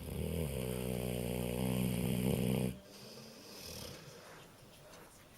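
A 15-year-old dog snoring: one long, loud snore that stops abruptly a little under three seconds in, followed by a quieter breath.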